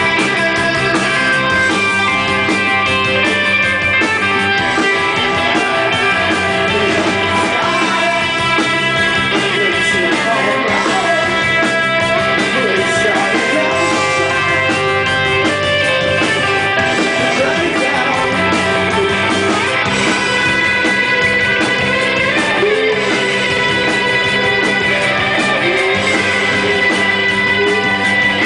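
Rock band playing live and loud: electric guitars and drums in a dense, unbroken wash.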